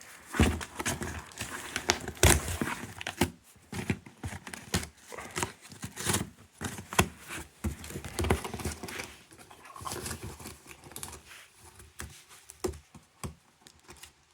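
Cardboard shipping box being pulled open by hand along its tear strip: irregular ripping, rustling and knocks of handled cardboard, thinning out near the end.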